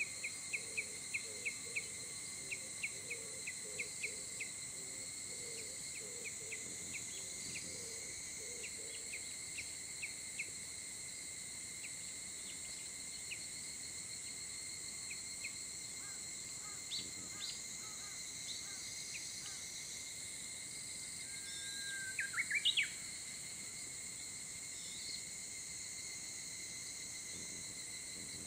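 Dawn countryside chorus: insects keep up several steady, even high-pitched tones while birds call over them, with a run of quick sharp notes that thins out over the first ten seconds, scattered chirps, and one louder brief call about 22 seconds in.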